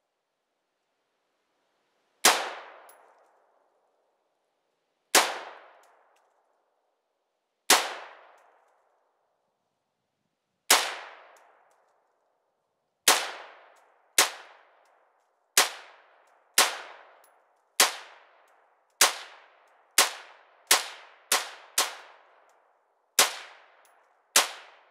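AR-15 rifle fired in single semi-automatic shots, sixteen in all, each followed by a short echo. The shots are a few seconds apart at first and come quicker, about one a second, in the second half.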